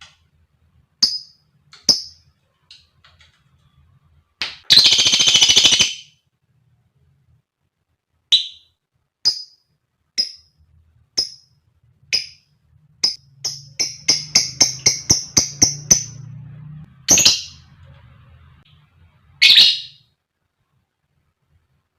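Female lovebird calling: short sharp chirps about once a second, a harsh, buzzy call lasting over a second about five seconds in, and a fast run of chirps, about seven a second, a little past the middle.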